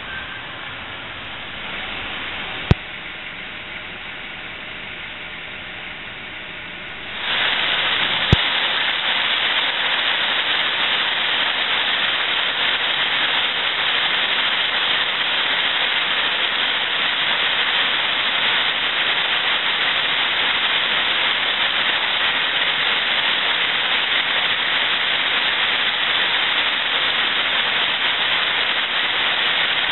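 Heavy rain pouring down in a steady, even hiss. It comes in suddenly about seven seconds in, after a quieter stretch of car-interior noise.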